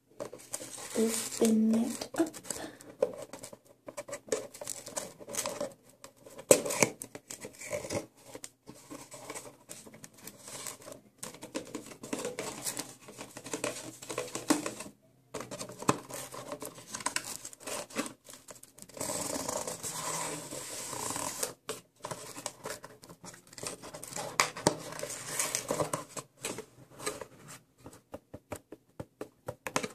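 Fingernails tapping and scratching on a cardboard perfume box: quick, irregular taps, with a longer stretch of steady scratching about two-thirds of the way through.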